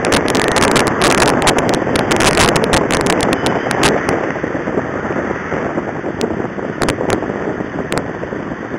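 Traffic noise heard from a moving car: a steady rush of road and engine noise with wind buffeting the microphone. Dense irregular clicks and crackles over the first few seconds thin out to a few scattered ones later.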